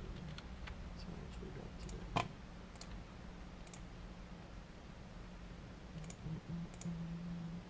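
Scattered light clicks from a computer mouse and keyboard at a desk, with one sharper click about two seconds in, over a low steady hum.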